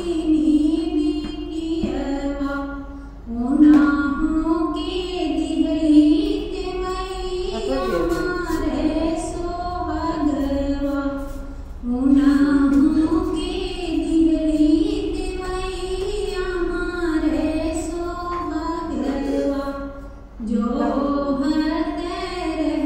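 A woman singing a devotional Chhathi Maiya (Chhath Puja) song with music behind her. The sung phrases are long, with short breaks about three, twelve and twenty seconds in.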